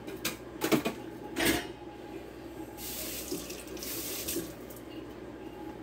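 Water running from a kitchen tap into a sink, with a few short splashing knocks in the first second and a half, then a steady rush of water for about a second and a half from around three seconds in.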